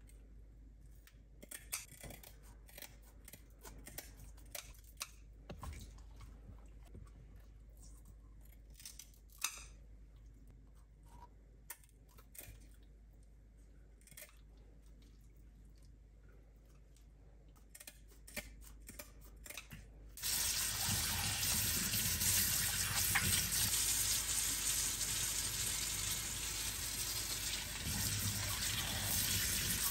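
Kitchen scissors snipping at the fins of a raw red snapper, a scattering of sharp clicks and cuts. About two-thirds of the way through, a faucet comes on and water runs steadily into a stainless steel sink as the fish is rinsed under it, louder than the snipping.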